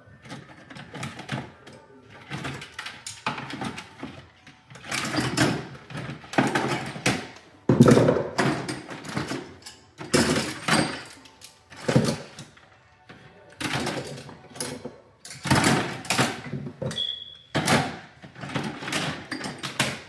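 Irregular knocks, scrapes and rustles of hands working at a wall thermostat's wiring, with a short high beep near the end.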